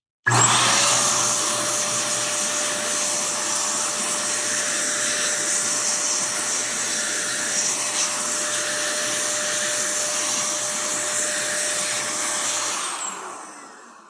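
Handheld electric air duster switched on and blowing at full power: a loud, steady rush of air over a constant motor whine and hum. It is blowing dust and debris out from between the switches of a keyboard with its keycaps removed, and it winds down and fades out near the end.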